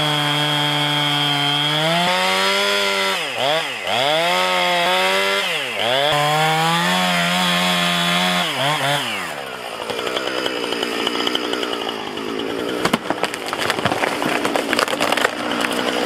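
Gas chainsaw at full throttle cutting into a leaning tree, its revs dipping and recovering several times under load. About nine seconds in the engine note drops away and a dense crackle of popping and cracking wood with sharp snaps follows as the trunk, rotten in the middle, splits and the tree comes down.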